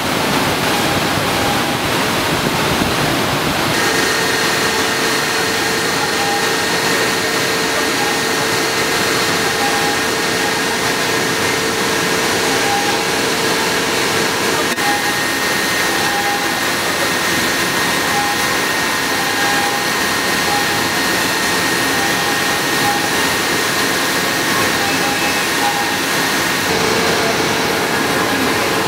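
Sugar cane factory machinery running: a loud, even rushing noise with steady whining tones on top, which change a few times.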